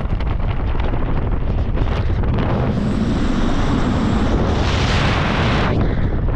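Wind buffeting the microphone of a helmet camera under an open parachute canopy: a steady low rumble, with a louder hissing rush from about two and a half seconds in that cuts off just before the end.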